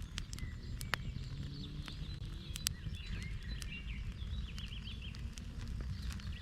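Small birds chirping and singing in quick, overlapping calls, over a steady low outdoor rumble. A few sharp clicks cut through, the loudest about a second in and near the middle.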